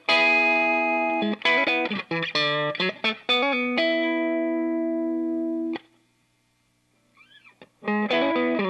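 Electric guitar played through an MXR Sugar Drive, a Klon-style overdrive pedal: a run of short overdriven chords, then one chord held about two seconds and muted. After a brief near-silent gap with faint string noise, the chords start again near the end.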